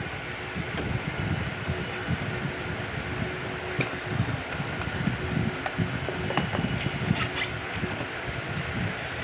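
Electric ceiling fan running, a steady hum under a gusty rush of air, with a few light clicks and taps in the middle.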